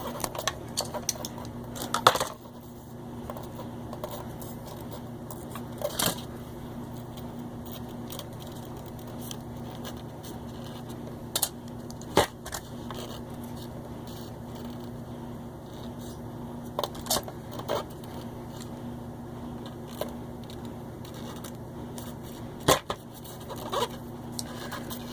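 Steady low hum of a laundry machine running in the background, with scattered sharp clicks and snips of hand tools working on electrical cord wire.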